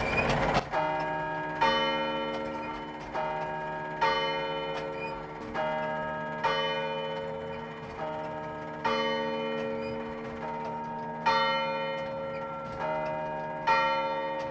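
Church bells ringing: several bells of different pitch struck one after another, about one strike a second, each ringing on over the next. A short burst of noise sounds at the very start.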